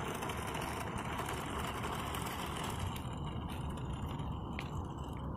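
Toy remote-control cars driving on asphalt: a steady whir of small electric motors with wheel noise.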